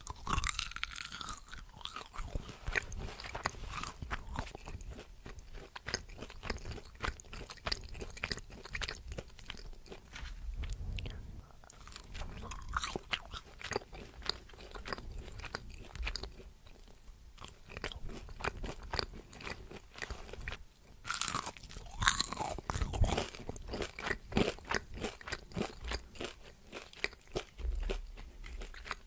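A person chewing and biting crunchy food, with dense, irregular crunches. The loudest bites come about a second in and around twenty-two seconds in.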